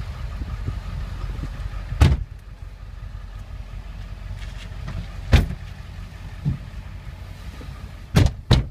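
Ford F350's 7.3-litre Power Stroke turbo diesel idling as a steady low rumble, with several sharp knocks and thumps of someone climbing into the cab, the last two close together near the end.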